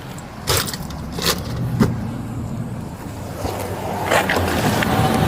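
A vehicle engine running steadily, with a few short sharp knocks or clicks over it.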